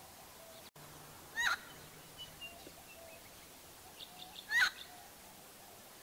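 Helmeted friarbird calling: two loud, short calls about three seconds apart, with a few softer short notes between them.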